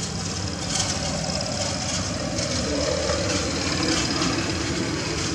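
A motor running steadily with a low hum, with faint scattered clicks over it.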